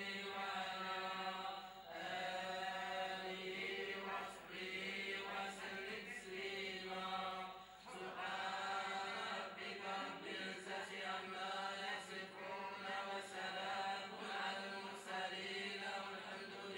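A group of voices chanting Sufi samāʿ and madīḥ, devotional praise of the Prophet, in long sung phrases with brief breaks between them.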